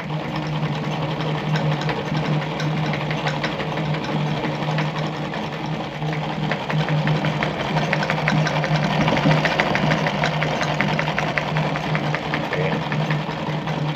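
Singer 319K zigzag sewing machine running steadily while stitching a built-in decorative zigzag pattern: a constant motor hum with a fast, even ticking of the needle and feed.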